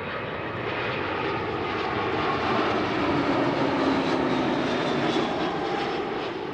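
Jet airliner on approach to land passing close overhead: engine noise swells to a peak about four seconds in, then starts to fade, with a whine sliding down in pitch as it goes by.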